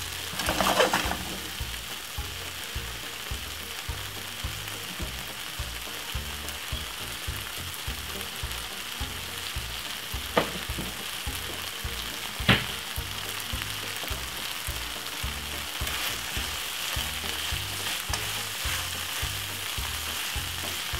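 Meatballs and vegetables in tomato sauce sizzling steadily in a non-stick frying pan, with a couple of sharp knocks about ten and twelve seconds in.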